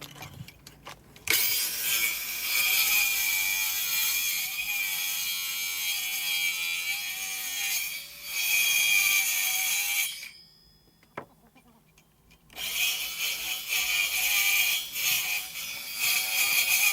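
A handheld power tool running under load on the workbench, in two spells: one of about nine seconds starting a second in, then a pause of a couple of seconds, then a second run near the end. Its pitch wavers as the load changes.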